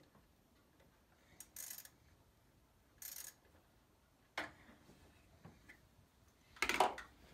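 Short bursts of clicking and scraping from a wrench working the battery terminal bolts, with a sharp click about four and a half seconds in and a louder clatter near the end.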